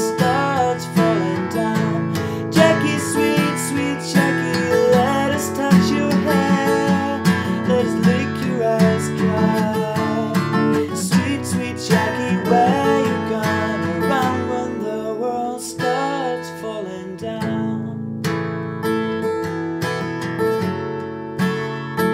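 Jumbo-bodied acoustic guitar strummed steadily in a song, with a man's voice singing a held, wavering melody over it. The voice stops about 16 seconds in, leaving the guitar strumming on its own.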